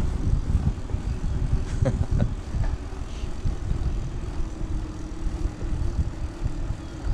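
Wind buffeting the microphone and tyre rumble from an e-bike riding on an asphalt path, with a steady low hum underneath.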